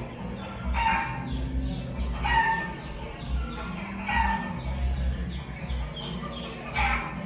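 Recorded chicken sounds played through a loudspeaker: hen clucks and calls repeating every second or two over a steady low hum.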